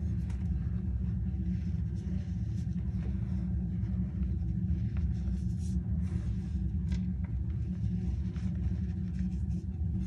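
Hands squeezing and pressing powdery cornstarch and gym chalk, giving faint, irregular crunches and squeaks, over a steady low rumble that is the loudest thing heard.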